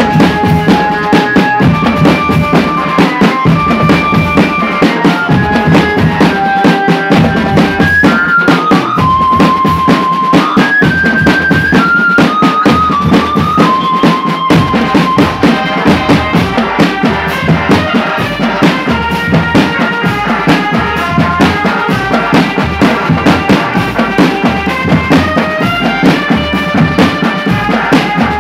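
Marching drum band playing: dense, rapid snare and bass drumming under a melody line of held notes that steps up and down.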